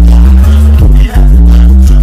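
Hip-hop track with heavily boosted bass, played very loud and pushed close to full scale. A deep, sustained bass line dominates the mix.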